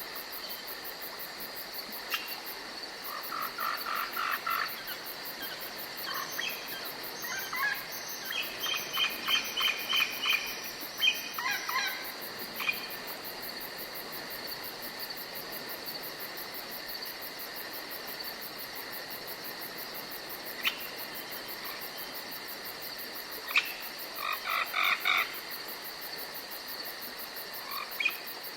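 Crickets chirring steadily in a night forest. Twice, bouts of quick pulsed animal calls break in over them: one for several seconds early on and a shorter one near the end, with a few single sharp clicks between.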